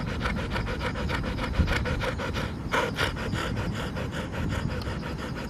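Labrador–Staffordshire bull terrier cross panting rapidly and steadily, close to the microphone.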